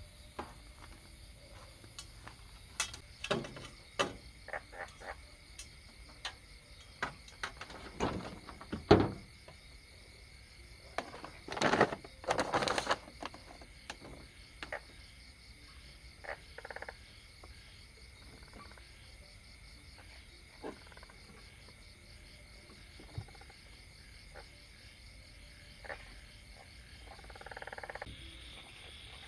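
Steady night chorus of frogs and insects, with a fast pulsing trill high up. Scattered clicks and knocks of things being handled sound over it, the loudest a sharp knock about a third of the way in and a clattering rattle just before the middle.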